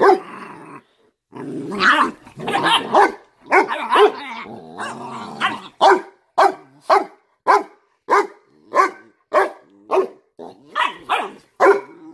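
Two Cane Corsos, a mother and her puppy, growling as they wrestle. About halfway through this turns into a run of short barks, roughly two a second.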